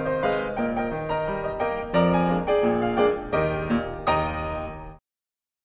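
Piano music, several notes sounding together and changing every fraction of a second, cutting off suddenly near the end.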